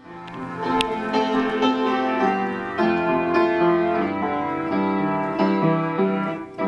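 Instrumental music: sustained keyboard notes changing in steps, with no singing.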